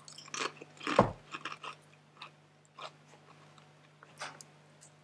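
A woman bites and chews a Doritos tortilla chip: a few irregular crunches in the mouth, the loudest about a second in.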